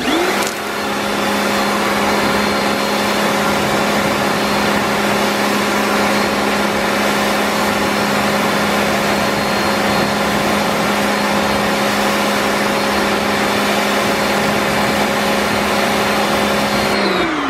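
Pressure washer running, a steady motor hum under the loud hiss of its water jet spraying a truck's wheel and tire. The motor spins up just after the start and winds down near the end.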